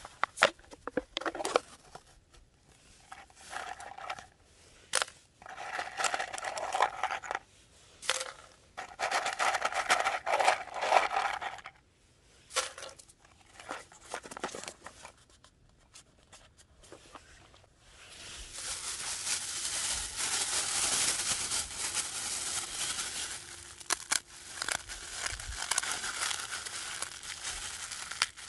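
Paper-cup snack lid being peeled and torn open, with sharp ripping bursts in the first half. From about two-thirds of the way through comes a steady crinkling of a thin plastic bag, squeezed and kneaded by hand with Jagariko potato sticks inside it.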